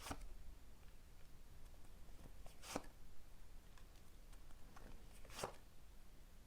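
Quiet room with three faint, brief taps of tarot cards being handled and laid down, near the start, about a third of the way in and near the end.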